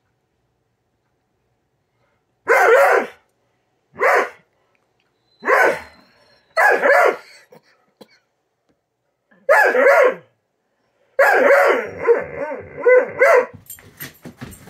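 Female Doberman giving impatient demand barks over a late breakfast: five short barks spread over about seven seconds, then one longer call of about two seconds that wavers up and down in pitch. Right at the end comes a quick run of clicks and scuffs as she scrambles up off the blanket.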